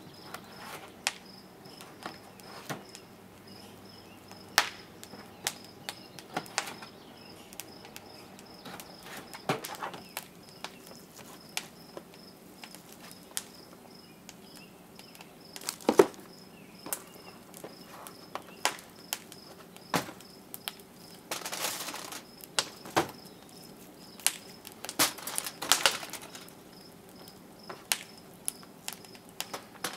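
Wood fire crackling in the firebox of a wood-fired pottery kiln: irregular sharp pops and snaps, the loudest about halfway through.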